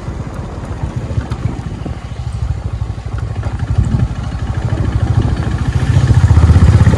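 Honda CB350RS air-cooled single-cylinder engine running under way at low speed, with an even rapid beat of exhaust pulses. It grows louder over the last couple of seconds as the throttle opens.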